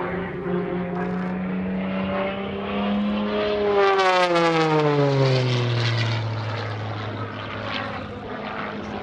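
MXS aerobatic monoplane's piston engine and propeller flying past. The pitch drops sharply about four seconds in as it goes by, where it is loudest, then holds lower as it pulls away.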